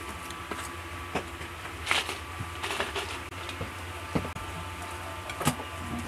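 Eating sounds of soft white bread being bitten and chewed: a few short, scattered clicks and rustles over a low steady hum.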